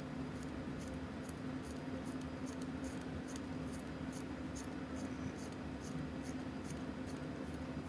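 Faint, light clicking, a few small ticks a second, from a Seiko 6106 automatic movement's hands being turned round by the crown to spread the fresh lubrication and check the wheel alignments. A steady low hum runs under it.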